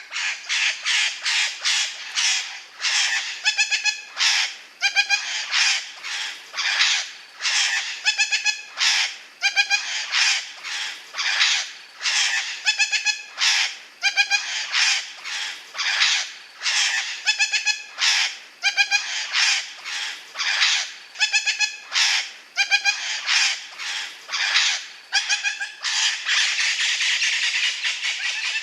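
Parrot squawking over and over, harsh calls about one or two a second, ending in a longer unbroken screech.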